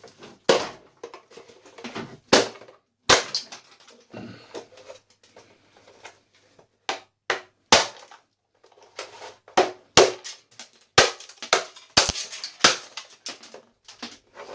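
Hammer blows on a coffee maker's casing to break it open, since its security screws can't be undone: a series of sharp, irregularly spaced strikes with pauses and smaller knocks between.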